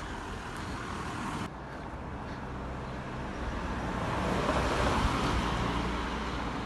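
A car driving past on a residential street, its tyre and engine noise swelling to a peak about five seconds in and then fading.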